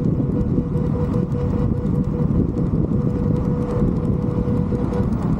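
Onewheel GT's electric hub motor whining at one steady pitch as the board is ridden. Heavy wind buffeting on the microphone and tire rumble run underneath it.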